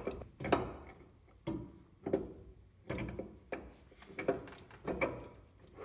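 Toyota front axle shaft being pushed and twisted into the axle housing, giving a series of irregular metal clunks and knocks. The inner splines have not yet lined up with the differential.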